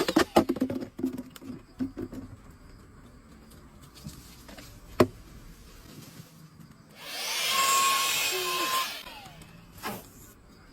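Handling clatter and clicks, with one sharp click about five seconds in. Then a small handheld car vacuum cleaner runs for about two seconds with a steady whine and stops.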